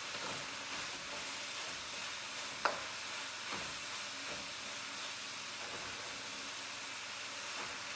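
Food sizzling in a frying pan on a gas stove, with a utensil stirring and scraping through it. One sharp clink of the utensil against the pan about two and a half seconds in, and a few lighter taps after it.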